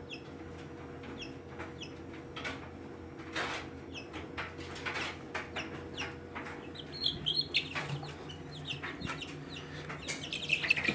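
Young chicks peeping in short, high chirps among brief rustling and scuffling sounds as the birds are handled, with the peeping loudest near the end.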